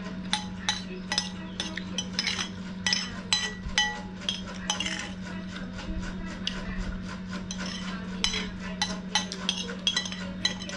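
A metal spoon clinking and scraping against a ceramic plate as food is scooped up. It comes as quick, irregular clicks, a few of them ringing briefly, over a steady low hum.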